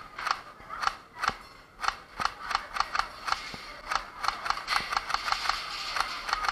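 Airsoft guns being test-fired: a series of sharp pops, a few single shots at first, coming faster, several a second, in the second half.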